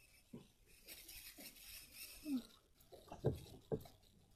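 Faint handling noise of small objects being moved about, light rustling and a few soft knocks, with two sharper knocks a little past three seconds in.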